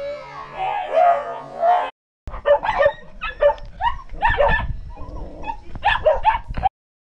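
Music for about two seconds, then, after a brief break, a dog barking and yipping rapidly, about a dozen short sharp barks in quick runs, over a low rumble.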